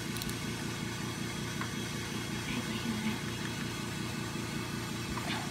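A steady mechanical hum, with a couple of faint clicks from a small ratchet turning a clutch bolt.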